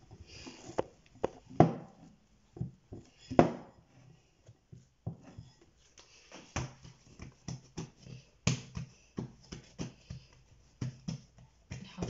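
Hands handling soft yeast dough, lifting it from a bowl and pressing and patting it flat on an oiled worktop: an uneven run of soft slaps and thuds, the loudest in the first few seconds.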